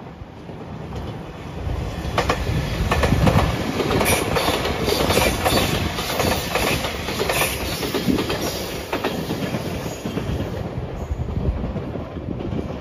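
JR Shikoku 8000 series electric limited express train (the Shiokaze Anpanman train) passing close by, its wheels clicking over rail joints. The sound builds about two seconds in and eases off near the end.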